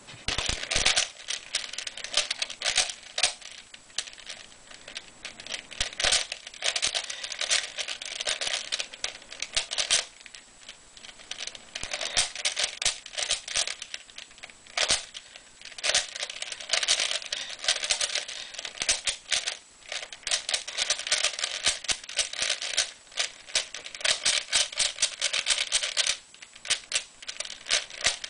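3x3 speed cube being turned rapidly by hand: the plastic layers click and clatter in quick runs, broken by brief pauses.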